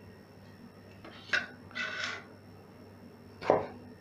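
A chef's knife slicing tomatoes and knocking on a wooden cutting board twice, about two seconds apart, with a short scraping sound between the knocks.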